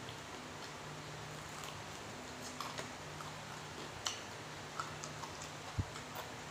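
Close-up chewing with small wet mouth clicks and smacks on a mouthful of fried chicken, over a steady low hum. A single soft knock near the end is louder than the rest.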